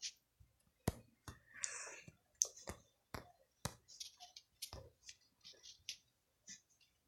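Irregular clicks and taps from drawing at a desk, with a short scratchy rub about a second and a half in.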